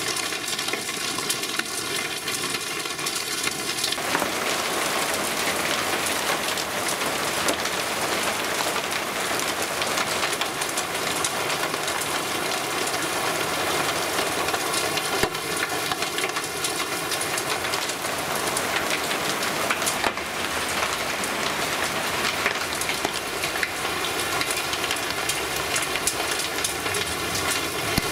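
Heavy rain pouring down in a steady hiss that grows louder and fuller about four seconds in.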